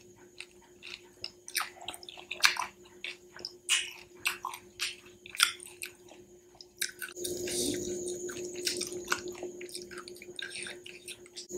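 Crisp fried panipuri shells being cracked open with a fingertip: a scatter of sharp little crackles and taps. About seven seconds in, it turns into a softer, continuous crackling rustle as the shells are handled and filled.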